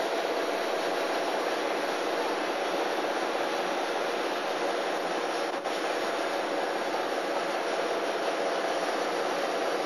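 Steady engine drone with a faint hum in it, unbroken throughout.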